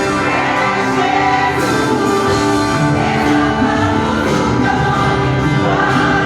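A choir singing a Christmas cantata with instrumental accompaniment, the voices held on long notes.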